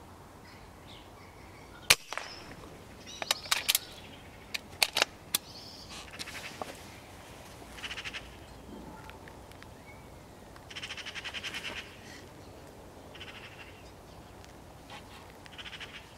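A single sharp air rifle shot about two seconds in, followed by scattered bird calls and clicks. A rapid chattering rattle lasting about a second comes a little past the middle.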